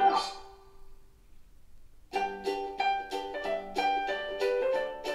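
Background music of quick, evenly paced notes. It dies away just after the start and comes back about two seconds in.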